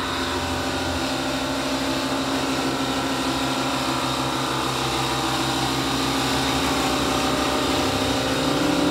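Electric sander running steadily on reclaimed wooden tabletop boards: a continuous whir with a faint high whine.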